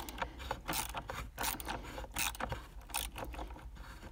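Hand ratchet with a deep 10 mm socket clicking in short, irregular runs as it works a copper nut on the battery hold-down loose.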